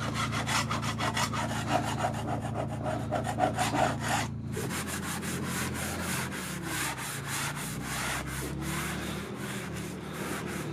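Hand sanding of a boat hull in rapid back-and-forth rubbing strokes, several a second, preparing the bottom for antifouling paint, with a short break about four seconds in. A steady low hum runs underneath.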